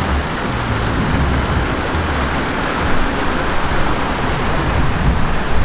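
Rain pouring steadily: a loud, even hiss of falling water.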